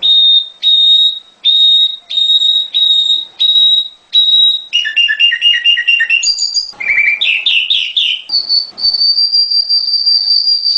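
Prenjak Gunung songbird singing a varied whistled song. It opens with a run of clear, evenly spaced high whistle notes, about one and a half a second. Halfway through comes a quick trill and a few rising chirps, then one long, steady high whistle held for about three seconds.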